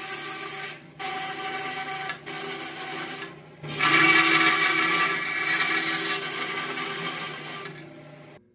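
Bandsaw running and cutting through a screwdriver's resin handle: a hiss of the blade cutting the plastic over the steady hum of the motor. The level dips briefly three times in the first four seconds, then the cutting fades near the end and stops suddenly.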